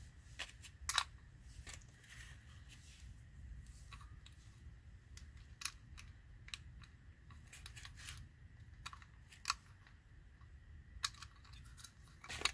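Scattered light clicks and taps as hands handle and turn the aluminium housing of a Porsche 996 Turbo rear-spoiler lift unit, with a few sharper knocks about a second in, around nine seconds and near the end. A faint low steady hum lies underneath.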